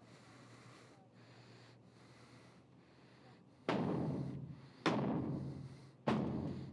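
Faint room hum, then three heavy booming blows about a second apart, each ringing out in a long echo: a battering ram being driven against a locked door.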